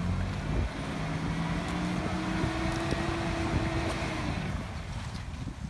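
Off-road truck engine held at raised revs under load, its pitch rising slightly, then easing off about four and a half seconds in.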